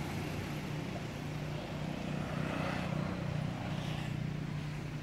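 A steady low engine hum, like a motor vehicle running, holding the same few low pitches throughout.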